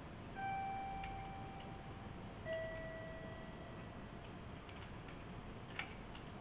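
Public-address attention chime: two descending notes, a higher ding then a lower dong, each ringing out and fading over about two seconds. A short sharp click near the end.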